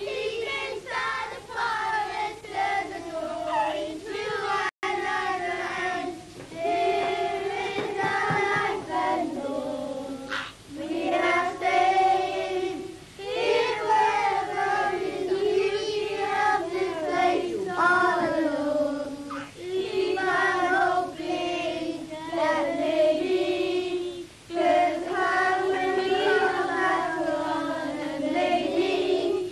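A group of young children singing a song together, with women's voices among them, in long sung phrases. The sound cuts out completely for an instant about five seconds in.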